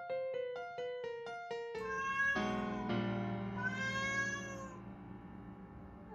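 A few quick piano notes stepping downward, then a cat's long drawn-out meow that starts about two seconds in and rises and falls in pitch.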